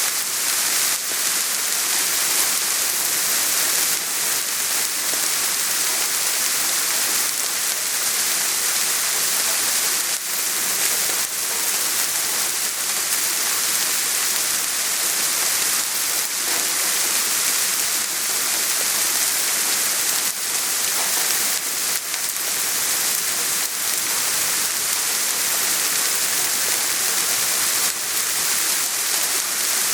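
Soft rain falling steadily: an even hiss, strongest in the upper range, with a slightly louder drop now and then.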